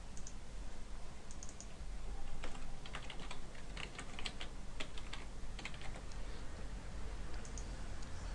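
Typing on a computer keyboard: irregular light key clicks in short runs, over a low steady hum.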